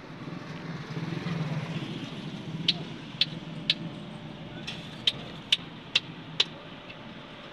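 A run of eight sharp, light clicks, about two a second, starting a few seconds in, over a low steady hum.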